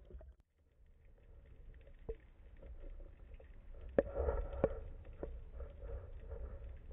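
Underwater ambience heard through a waterproof camera housing: a low muffled rumble of water with scattered sharp clicks and knocks. The loudest two come about four and four and a half seconds in.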